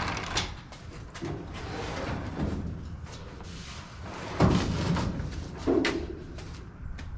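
Bare steel 1960 Ford F100 pickup cab being rocked and tipped upright off a wooden rolling cart by hand: a series of irregular knocks and thumps of sheet metal and wood, loudest about four and a half seconds in.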